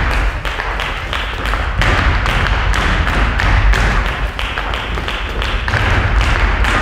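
Ballet folklórico zapateado footwork: a group of dancers' shoes stamping and tapping on a floor in rapid, uneven strikes.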